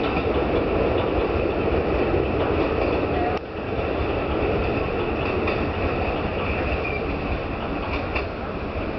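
Running noise of a four-car JR Kyushu 811 series electric train pulling out and moving away, a steady rumble of wheels on rail that slowly fades.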